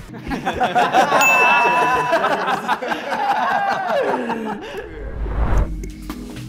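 Men chuckling and laughing, with a short bright electronic ding a little over a second in. A low rumble near the end, then background music begins.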